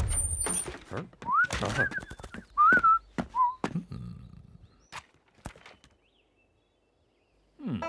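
Several short whistled notes that slide up in pitch, mixed with a few clicks and knocks; the loudest comes about two and a half seconds in.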